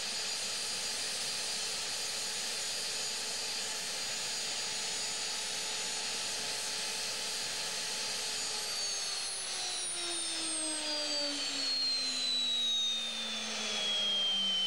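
Gazelle helicopter's turbine engine whining steadily with a hiss on the ground, then falling steadily in pitch from about two-thirds of the way through as it winds down.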